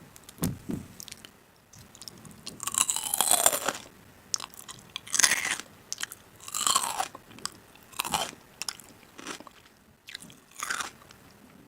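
Someone biting and chewing crisp food, in separate loud crunches every second or two with quieter chewing between.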